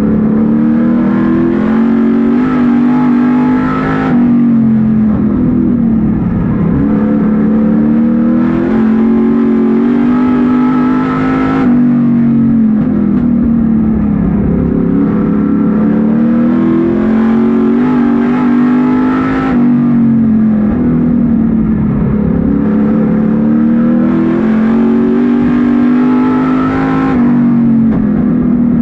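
Street stock race car's engine at racing speed, heard from inside the cockpit. Its pitch climbs for three to four seconds and then drops back, four times, as the car accelerates down each straightaway and lifts for the turns.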